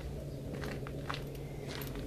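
A handful of light, sharp clicks and scuffs, spread unevenly over the second half, over a steady low hum.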